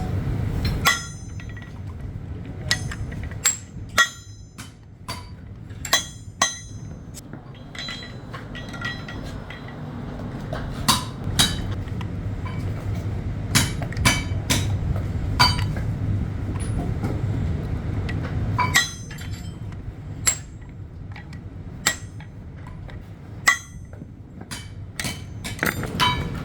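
Metal striking metal in a workshop: irregular sharp clinks and knocks, some of them ringing briefly, about one every second or so, over a steady low machine hum.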